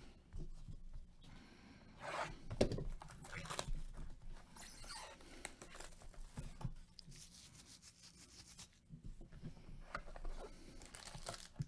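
Plastic wrapping tearing and crinkling along with cardboard rustling as a sealed trading-card hobby box is unwrapped and opened by hand, in irregular short bursts.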